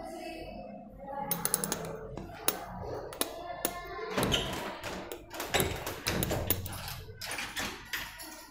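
Irregular light clicks and knocks of a glass beaker with funnel being lifted and carried, mixed with footsteps on a tiled floor.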